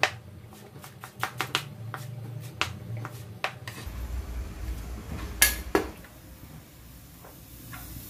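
Kitchen knife chopping spring onion on a cutting board: a quick run of sharp knocks on the board, then two louder knocks just past the middle.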